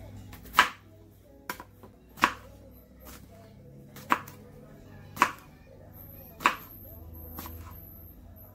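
Chef's knife slicing a cucumber into rounds, the blade knocking on a bamboo cutting board: five loud sharp chops spaced unevenly a second or two apart, with a few lighter taps between them.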